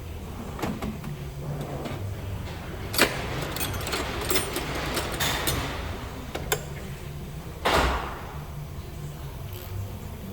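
Hand work on a car during an oil change: scattered clicks and knocks of tools and parts, with a sharp knock about three seconds in and a heavier thud near eight seconds, over a steady low hum.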